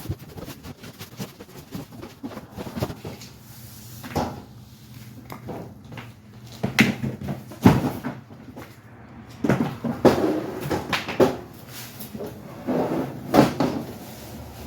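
Gas grill box and packed parts being handled and unpacked: a string of irregular knocks, clicks and rustles of cardboard and packing, with a heavier thud about halfway through and a busier run of knocks near the end.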